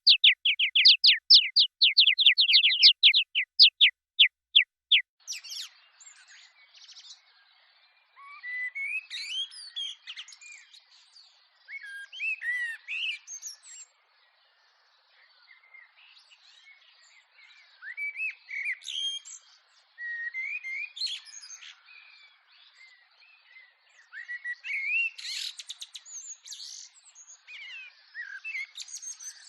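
A bird repeats a rapid string of loud, downward-sweeping chirps, several a second, for about the first five seconds. Then several birds sing and call in clusters of varied chirps and whistles, with short pauses between the clusters.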